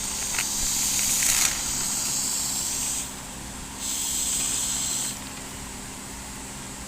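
Great Stuff gaps-and-cracks expanding foam hissing out of its can's trigger nozzle in two spurts, the first ending about three seconds in and the second lasting just over a second, as a crack in a dash pad is filled.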